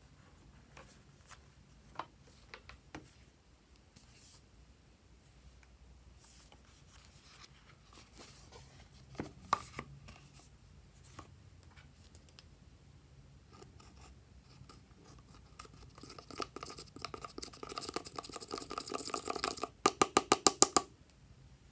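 Scattered clicks and taps from a plastic eyeshadow palette being handled, then pressed eyeshadow scraped out of its pan with a brush: a few seconds of rapid scratching that gets louder, ending in a quick even run of sharp ticks.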